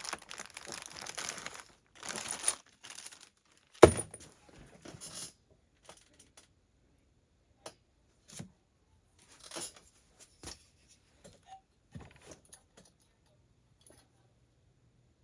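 Rummaging through a bag of spare chainsaw parts: crinkling and rustling for the first few seconds, then a sharp knock about four seconds in, followed by scattered small clicks and taps of small parts being handled.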